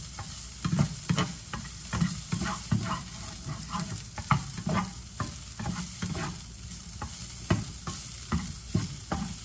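Diced sausage frying and sizzling in a skillet without added oil, with a spatula scraping and knocking against the pan in irregular strokes, two or three a second, as the pieces are stirred.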